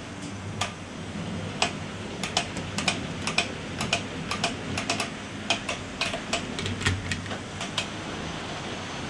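Sharp, irregular clicks, often in close pairs, of HO-scale model train wheels running over rail joints and turnouts, over a faint steady hum. The clicks run from just after the start to about 8 s in.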